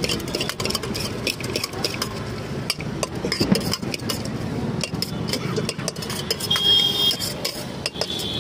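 Metal spoon stirring and scraping bhelpuri mix around a steel bowl, a fast, irregular run of small clinks and scrapes, over a steady low background rumble.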